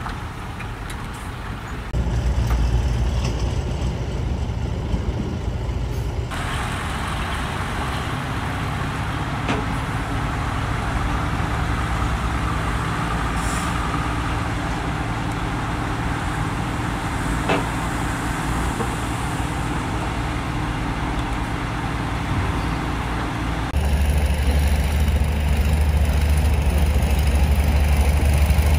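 Heavy diesel truck engines running steadily. The sound jumps abruptly in level and tone where shots change, about two, six and twenty-four seconds in.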